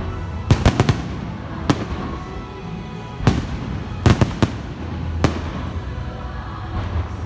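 Aerial firework shells bursting close to the launch site, as sharp loud bangs. A rapid run of bangs comes about half a second in, single bangs follow, and another quick cluster comes about 4 seconds in, over the show's background music.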